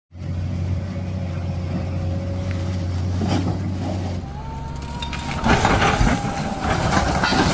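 Excavator's diesel engine running steadily with a low hum as it wades through floodwater. After a cut about four seconds in comes a louder, rougher rumble of earth and machinery, heaviest in the last two seconds, as an excavator slides down an earth slope.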